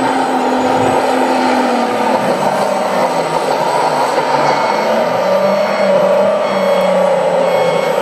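1/14-scale RC Komatsu D65PX bulldozer running steadily as it crawls and pushes soil: its sound unit's imitation diesel engine mixed with the drive's mechanical whine. The engine hum drops slightly in pitch about two seconds in.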